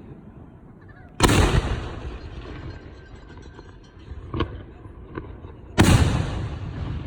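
Professional aerial firework shells bursting: two loud booms about four and a half seconds apart, each trailing off in a long rolling echo, with two smaller pops between them.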